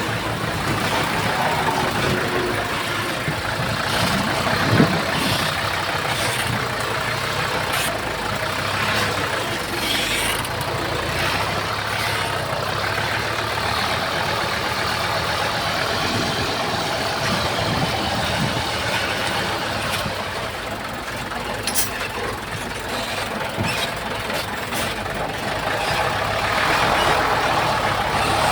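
Bulldozer's diesel engine running steadily under load, with a few sharp clanks from the machine or from stone.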